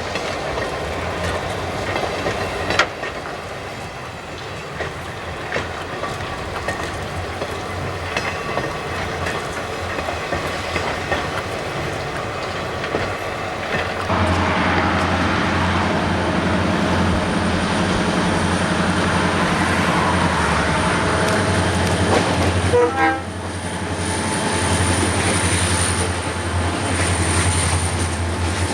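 Buffalo & Pittsburgh freight train with diesel locomotives running by, engines droning steadily, with wheels clattering over rail joints. The sound grows louder about halfway through and briefly drops off about two-thirds of the way in.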